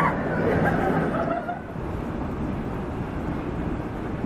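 Night-time city street ambience: passers-by's voices mingle with a steady low rumble for the first second and a half, after which only the steady rumble and hiss go on.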